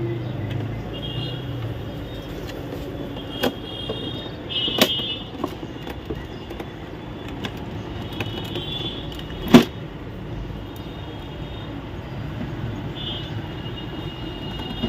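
A few sharp clicks and knocks as a screwdriver drives screws into the plastic housing of an Epson L3210 printer's scanner unit; the loudest knock comes about halfway through. Under it runs a steady background hum.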